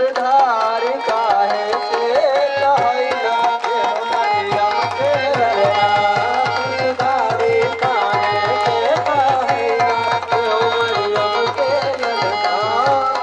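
Devotional worship song: singing into a microphone over a quick, steady hand-drum beat that comes in about two and a half seconds in, with the congregation clapping along.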